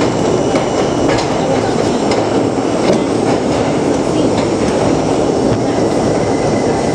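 New York City subway train moving slowly along a station platform, heard from inside the front car: a steady rumble of wheels and running gear, with a few sharp clicks over rail joints in the first three seconds.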